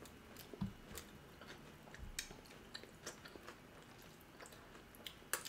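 Faint chewing of Korean marinated beef short ribs (galbi), with scattered soft mouth clicks.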